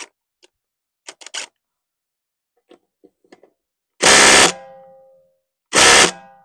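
Craftsman R+P 20V impact driver, powered by a Flex battery through an adapter, hammering on a lug nut in two short bursts, about four and six seconds in. Each burst cuts out after about half a second, with a metallic ring fading after the first. The tool shuts off right away because, it seems, it does not get on with the adapted Flex battery.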